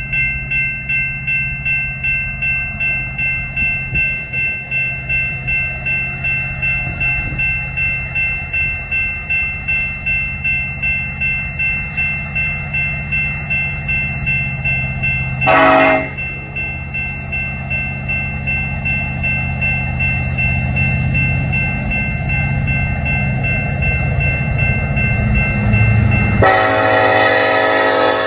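Grade-crossing bell ringing about twice a second over the low rumble of a BNSF lash-up of EMD diesel locomotives, led by an SD70ACe, which grows louder as it approaches. A short locomotive horn blast comes about halfway through, and near the end the horn sounds as the lead units pass close by.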